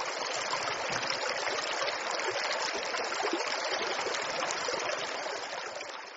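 Steady rushing of flowing water, like a stream, with no pitched sound in it, easing down near the end.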